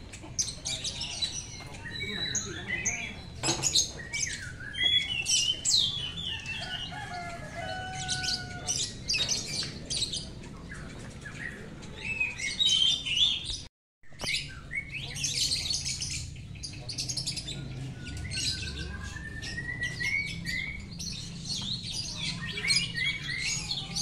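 Several caged oriental magpie-robins (white-breasted kacer) singing at once: overlapping chirps, quick whistled phrases and long sliding notes.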